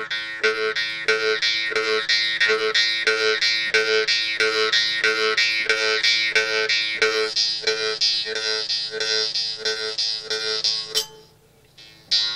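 Jew's harp (vargan) played with a steady rhythmic plucking, about three twangs a second over a constant droning tone with shifting overtones. The playing breaks off about a second before the end, then one more twang sounds.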